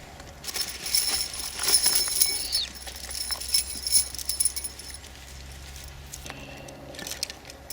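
Small metal objects jingling and clinking, a rapid run of clicks with high ringing tones that is loudest in the first few seconds and then fades to scattered clicks.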